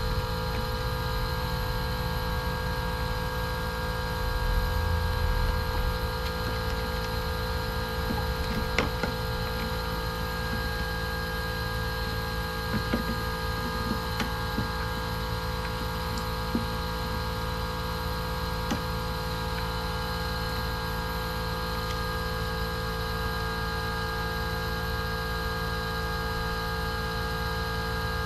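A steady hum of several fixed tones, with a few faint clicks and taps from about a third of the way in as hands work plastic clips and an electrical connector in the engine bay.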